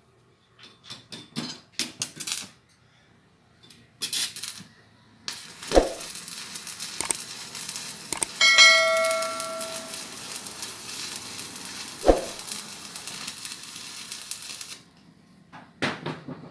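Stick (arc) welding: after a few light metallic clicks and taps, the electrode's arc crackles and hisses steadily for about nine seconds while a weld run is laid, then cuts off suddenly. A brief bell-like metallic ring sounds partway through the run.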